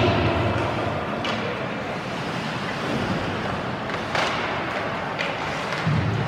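Ice hockey game sound: a steady wash of skates scraping on the ice and arena noise, broken by about four sharp clacks of sticks, puck or boards.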